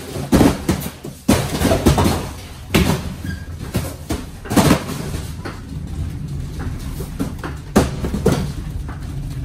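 Cardboard boxes being pulled off metal roll cages and tossed down, landing in a string of thuds and knocks on a trailer floor, with the cages rattling. From about halfway a steady low rumble runs under the knocks.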